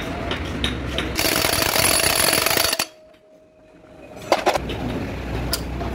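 Corded electric impact wrench hammering on the output flange nut of a truck gearbox in a burst of about a second and a half that cuts off suddenly. A couple of sharp metal clanks follow about four and a half seconds in.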